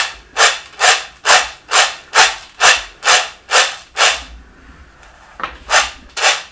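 Roasted, skinned peanut halves rattling and sliding in a plate as it is jerked forward over and over, about two strokes a second, winnowing off the loose skins. The strokes stop about four seconds in, then three more come near the end.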